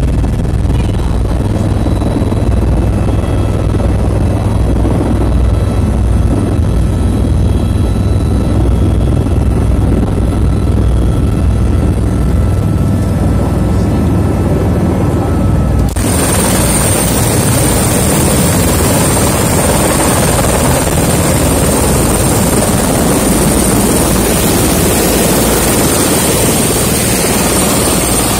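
Helicopter rotor and engine running: a heavy low rumble heard from inside the cabin as it comes down to land. About halfway through the sound changes abruptly to a close, hissing rush with a strong steady high whine, as the rotor keeps turning beside the helicopter on the ground.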